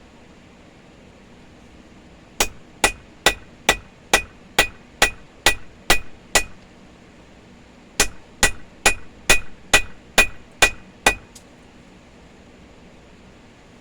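Blacksmith's hand hammer striking hot steel on an anvil: two runs of about ten and then eight blows, a little over two a second, with a short pause between. Each blow rings briefly.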